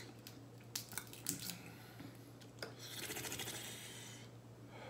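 Crab leg shells being cracked and picked apart by hand: several sharp cracks and clicks in the first two and a half seconds, then a softer stretch of rustling, crackling noise about three seconds in.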